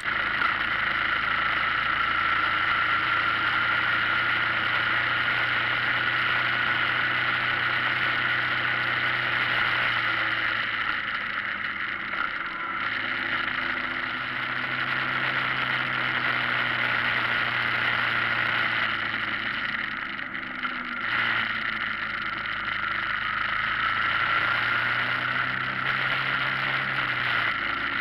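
Motorcycle engine running steadily on the move, with wind rushing over the microphone. The engine note drops and picks up again about twelve seconds in and once more about twenty seconds in, as the throttle is eased and reopened through curves.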